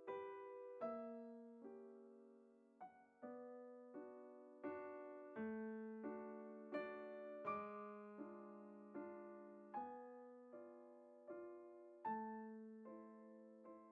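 Quiet background piano music: slow, even notes and chords struck about once every three-quarters of a second, each one dying away.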